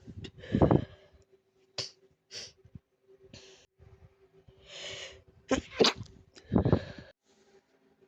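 A person sneezing from allergies: a breathy sneeze about half a second in, then a run of short, sharp catching breaths building up, and a second loud sneeze near the end.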